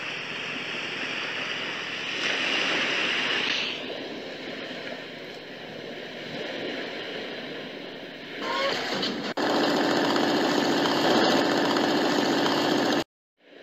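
Sound effect of landing-craft engines running at sea: a steady, noisy rumble that turns abruptly louder and denser about nine seconds in, then cuts off suddenly near the end.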